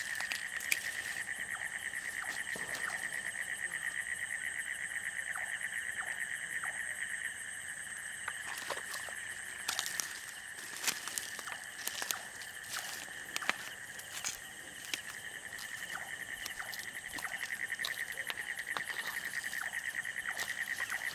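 A chorus of night insects trilling steadily in fast, even pulses. Scattered rustles and footfalls in leafy undergrowth come between about ten and fifteen seconds in.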